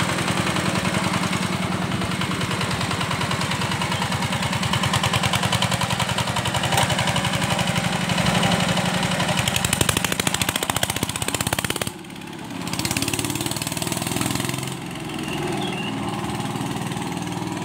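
Stripped-down custom motorcycle's engine running loudly with a rapid, pulsing beat. About twelve seconds in the sound drops off suddenly, swells briefly, then fades as the bike rides away down the road.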